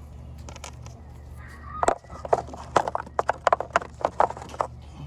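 A quick, irregular run of about a dozen hard clacks and clinks from hand tools being handled, starting about two seconds in and stopping before the end, over a steady low hum.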